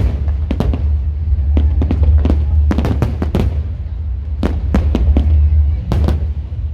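Fireworks going off in uneven clusters of sharp bangs, some ringing out briefly, over a steady deep rumble.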